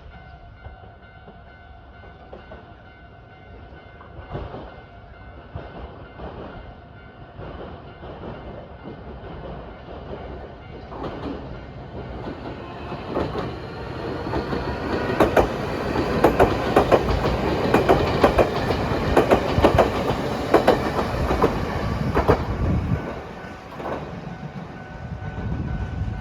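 Nankai Railway electric train approaching and passing close by. Its wheels clack rhythmically over the rail joints, loudest in the middle of the passage, and the sound fades off near the end.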